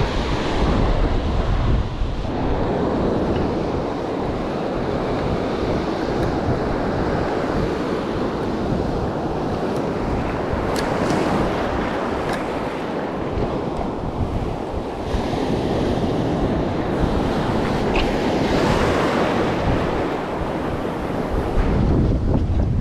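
Surf breaking on the beach, a steady wash of waves swelling now and then, with wind buffeting the microphone.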